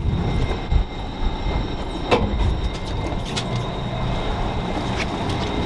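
Steady low rumble of wind buffeting the microphone over the idling outboard motors of an offshore fishing boat, with a faint steady whine and a few short knocks.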